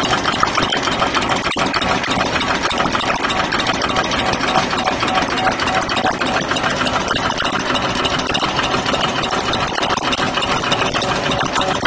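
Automatic wet wipes making and packing machine running: a steady, dense mechanical clatter from its cutting, folding, stacking and film-feeding mechanisms.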